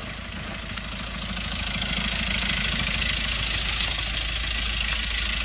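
Van engine running as the vehicle pulls up, growing louder over the first couple of seconds and then idling steadily.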